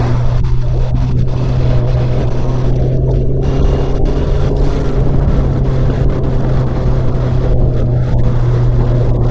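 Honda CBR650R's inline-four engine and exhaust running under way, holding a steady, loud engine note at a constant speed.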